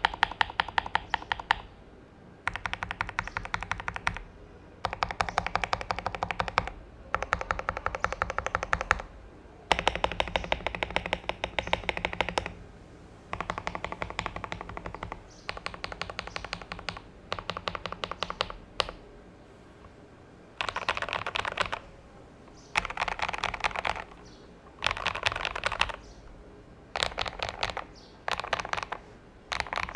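Typing on a CIY Tester 68 mechanical keyboard with lubed KTT Kang White linear switches, lubed stock stabilizers, and PE foam and tape mods. Rapid keystrokes come in bursts of one to three seconds with short pauses between.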